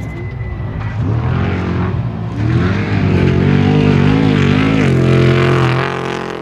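Off-road race vehicle's engine running with the throttle worked on and off, its pitch rising and falling repeatedly; it gets louder about two and a half seconds in.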